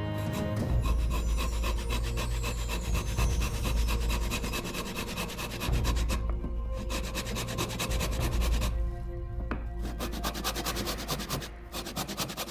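Japanese pull saw cutting across a wooden workpiece in repeated rasping strokes, with two short pauses, about six and nine seconds in.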